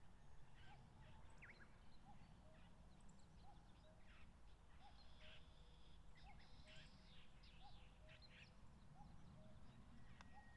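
Faint, distant common cuckoo calling its two-note "cuck-oo" over and over, about once a second, while other small birds chirp higher up and a low rumble of wind runs underneath.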